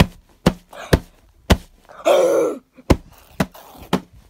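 A hand smacking a fabric Batman cushion over and over, about two blows a second, with a short grunt-like shout about two seconds in.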